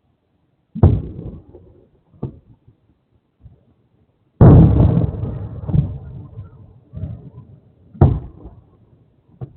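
Aerial firework shells bursting: several deep booms, each trailing off in a rumble. The loudest and longest comes about four and a half seconds in, with smaller pops between. Picked up through a small security camera's microphone.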